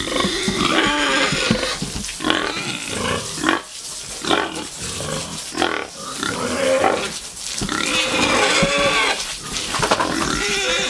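Several pigs calling continuously, a din of overlapping high, wavering cries and lower grunts.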